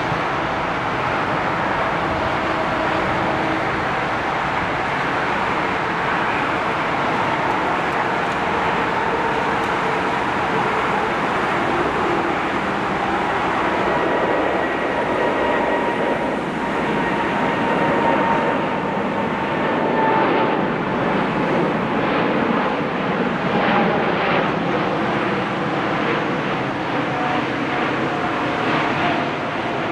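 Boeing 747-8's four GEnx turbofan jet engines at takeoff thrust as the airliner lifts off and climbs away: a steady, continuous roar with a faint whine that slowly drops in pitch.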